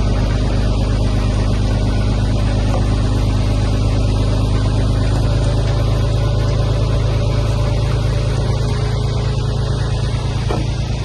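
Heavy diesel engine of earthmoving equipment running at a steady speed, a constant low drone.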